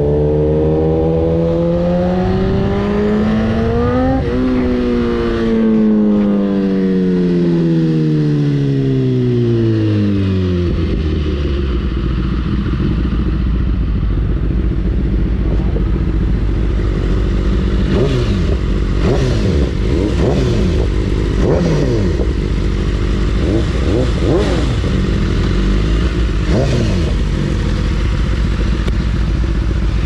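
BMW superbike's inline-four engine with an Akrapovic exhaust, revving up for about four seconds and then winding down over the next six as the bike slows. After that it runs at low revs with a steady rumble, broken in the second half by many quick throttle blips.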